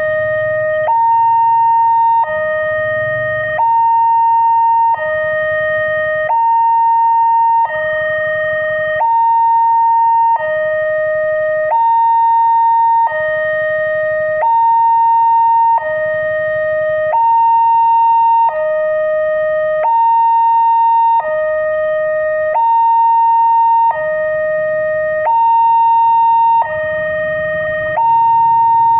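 Electronic warning siren of a railway level crossing sounding continuously, alternating between a higher and a lower tone, each held a little over a second.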